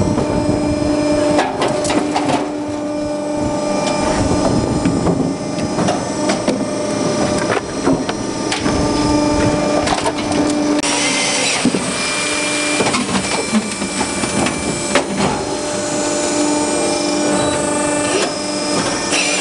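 TMS-45 firewood saw-splitter running: a steady machine hum that comes and goes every few seconds, with repeated knocks and clatter of split firewood pieces.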